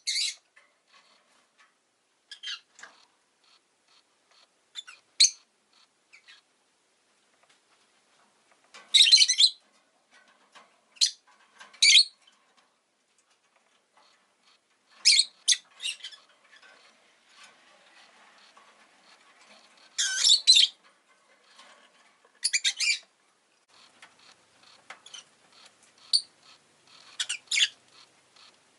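Rosy-faced lovebird giving sharp, shrill chirps and calls at irregular intervals, some single and some in short clusters of about a second.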